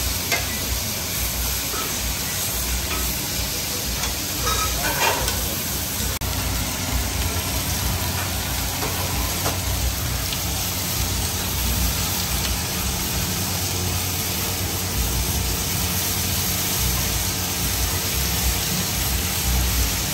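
Buffalo steaks and corn cobs sizzling in a ridged cast-iron grill pan: a steady frying hiss with a low rumble underneath.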